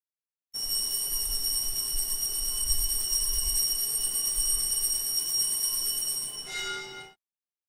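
Altar bells ringing continuously for the elevation of the chalice at Mass, several high bell tones held steady. Near the end a lower, different bell tone joins, and the ringing cuts off suddenly.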